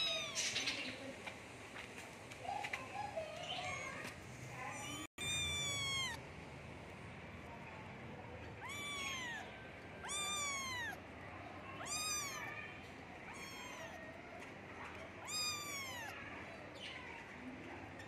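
Cat meowing repeatedly: a series of high-pitched meows, each rising and then falling in pitch, coming every two to three seconds.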